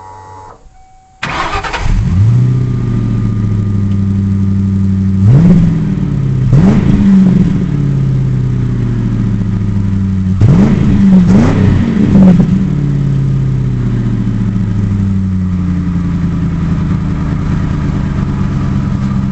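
1996 Ford Mustang GT's 4.6-litre V8 on its factory exhaust starting about a second in, settling to idle, then given several quick throttle blips in two groups before returning to a steady idle. At 140k miles the original catalytic converters are still fitted, which the owner suspects are choking the exhaust.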